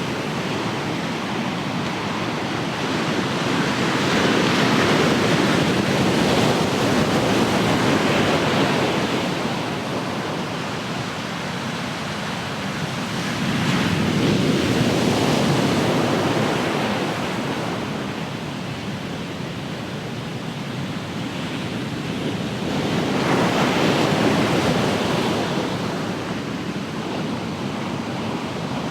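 Ocean surf: waves breaking and washing ashore in a continuous rush, swelling about three times as sets roll in and easing between them.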